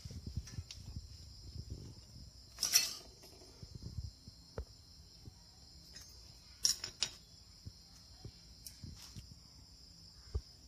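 Scattered small metal clicks and clinks as the A/C compressor clutch plate, its shim washer and hand tools are handled, the loudest about three seconds in. A steady high chirring of crickets runs underneath.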